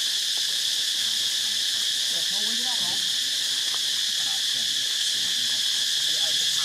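Steady high-pitched drone of an insect chorus. A faint wavering call rises and falls about two to three seconds in.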